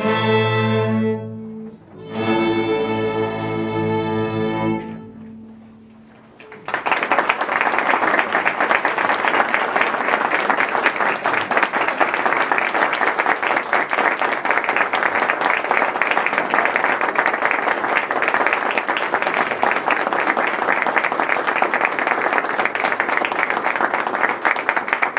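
A string orchestra of violins, cellos and double basses plays its final two chords, the last one held and then fading out. After a short pause an audience applauds steadily.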